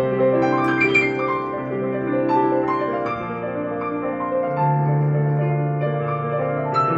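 Digital piano playing a slow arrangement: held chords under a melody line, with new chords struck about a second in and near the end, and a low bass note sustained through much of the second half.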